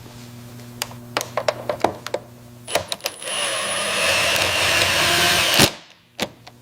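A run of sharp clicks and light taps, then about two and a half seconds of steady hissing whir that ends in a loud knock, followed by one more click.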